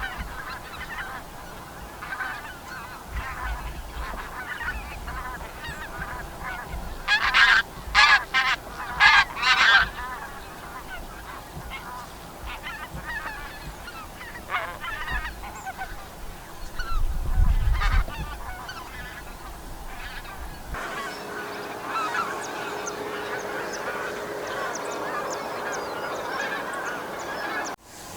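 Wild geese calling in a flock: repeated honks, with a burst of several loud, close honks about seven to ten seconds in.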